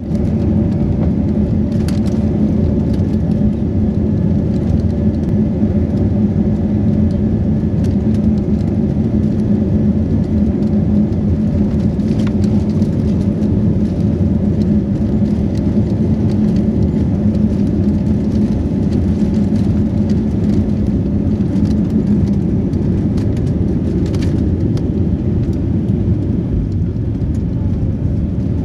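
Airbus A320-family jet airliner's engines at takeoff thrust, heard from inside the cabin: a loud, steady rumble through the takeoff roll and liftoff. A steady low hum within it fades out about 22 seconds in, between the ground run and the climb.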